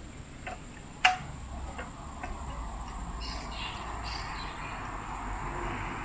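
Footsteps ticking on the metal deck of a rainforest canopy walkway, about two a second, with one sharp click about a second in. Behind them rises the even hiss of forest insects.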